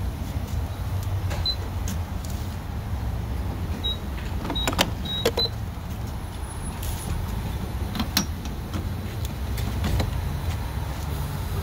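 Handling a gas station fuel pump: a few short high beeps from the pump's keypad about four to five seconds in, and sharp clicks and knocks as the nozzle is taken from the pump and fitted into the car's filler neck, over a steady low rumble.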